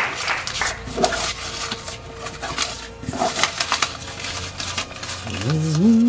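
A hand rummaging among paper slips in a plastic bin: irregular rustling and crackling. Near the end a short low tune steps upward in pitch.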